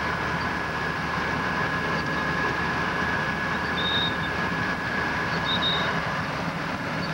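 Snowcat running steadily as it climbs through deep snow, engine and tracks heard from inside the cab. Two brief high squeaks come past the middle.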